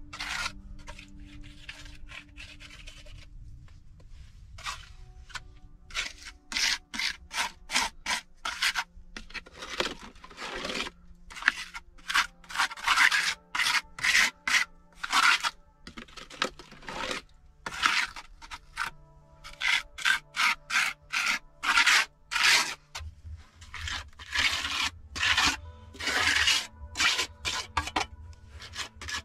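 A hand trowel scraping and smoothing wet mortar over the surface of a brick stove, in rapid repeated strokes at two or three a second that start about six seconds in.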